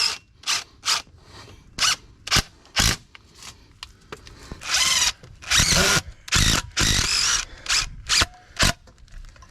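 A handheld power tool, run in a dozen or so short bursts with a few longer runs about halfway through.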